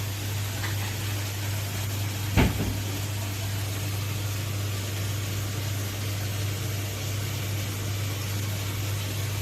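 Steady low electrical or machine hum over a constant hiss, with a single sharp knock about two and a half seconds in.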